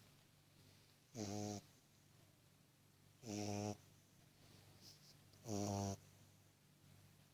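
Beagle puppy snoring in its sleep: three short snores, each about half a second long, evenly spaced about two seconds apart.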